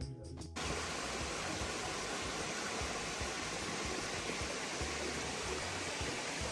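Steady rush of a creek and small waterfall, cutting in abruptly about half a second in, with an uneven low rumble underneath.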